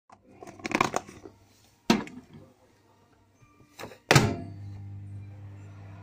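Plastic container clicking and knocking as it is closed and handled, then a loud thunk about four seconds in, after which a microwave oven runs with a steady low hum.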